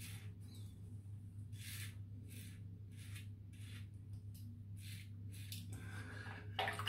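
Double-edge safety razor (Razorine Flatboy with a Kai blade) scraping stubble on the neck: a run of short, crisp rasps, some half a second apart, with short pauses between groups.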